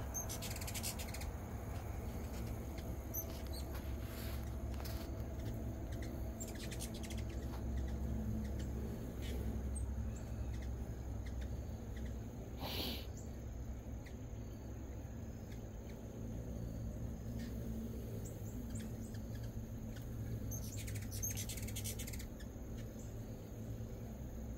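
Hummingbirds chittering in short, high-pitched bursts a few seconds apart, over a steady low hum.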